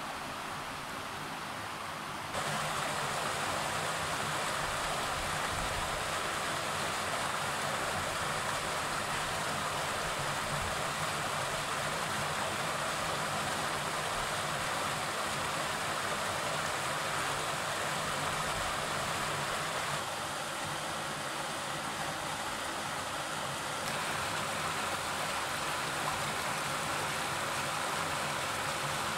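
Shallow river flowing over stones, a steady rush of water. Near the end, water is poured into an enamel pot.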